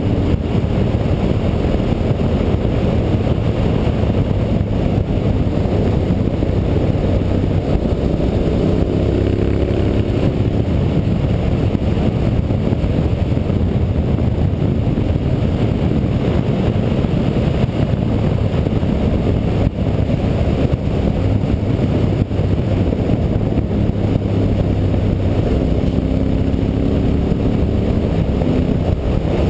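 Honda Varadero 1000's carbureted V-twin engine running steadily as the motorcycle rides along, mixed with rushing wind noise. The engine pitch rises and falls around ten seconds in and again near the end.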